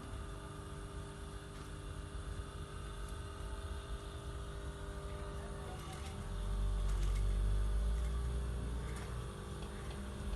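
Industrial sewing machine running with a steady hum, its low rumble swelling louder for about three seconds from about six seconds in as it sews.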